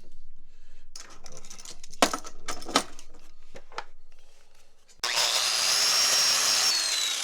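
Clicks and knocks of tools being handled against metal, two sharper knocks among them; then, about five seconds in, a handheld power tool starts suddenly and runs with a high whine, its pitch falling as it spins down near the end.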